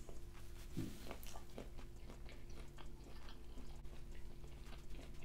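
A person chewing a bite of fresh, unfried Vietnamese spring roll (rice-paper wrapper, shrimp, basil and rice noodles), heard close up as soft, scattered wet mouth clicks.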